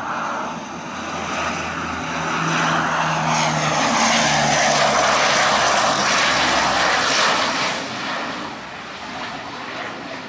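Antonov An-12BK's four Ivchenko AI-20 turboprop engines and propellers on landing approach, a loud roar with a low droning hum. It builds as the aircraft passes close by, peaks mid-way, then fades near the end as it heads down toward the runway.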